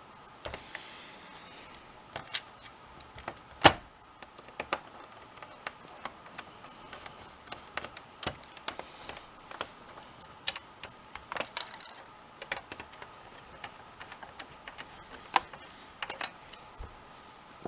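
Irregular clicks and knocks of hard plastic and metal console parts being handled as a PS4's disc drive is fitted back into the console, with one sharper knock about four seconds in.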